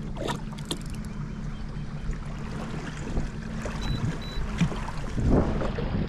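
Water splashing and rushing along the hull of a fishing kayak moving forward, under a steady low hum. A few sharp clicks come in the first second, and the splashing grows louder near the end.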